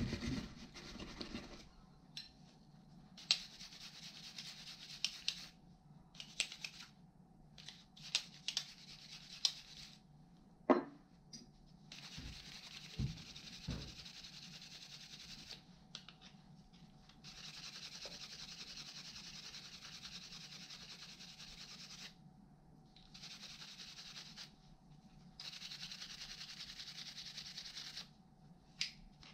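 Rusty steel tool parts being scrubbed by hand in long rubbing strokes, in stretches of a few seconds each from about twelve seconds in. Before that, metal pieces are picked up and set down with scattered clicks and knocks, one louder knock just before the scrubbing starts.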